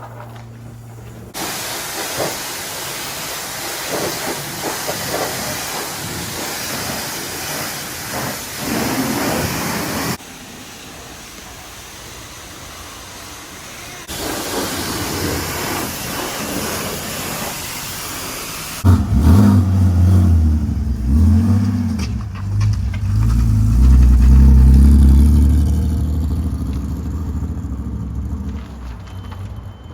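High-pressure car-wash spray wand hissing against the car in two long stretches. It then gives way to the BMW E46's straight-six engine running and revving, loudest about two-thirds of the way through before easing off.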